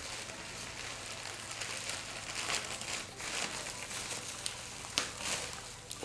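Cardboard product packaging being torn open by hand, crinkling and crackling continuously, with a sharp crack about five seconds in.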